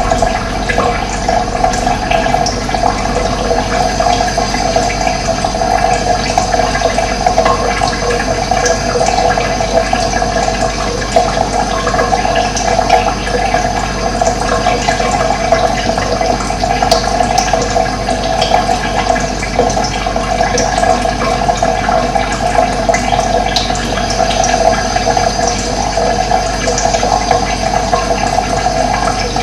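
Running water flowing steadily, an unbroken rush with no pauses.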